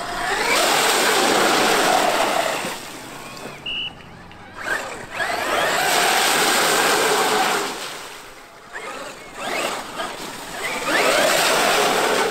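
Traxxas X-Maxx brushless electric RC monster truck tearing through puddles and wet sand. Three long bursts of rushing water spray and tyre noise come with quieter gaps between them.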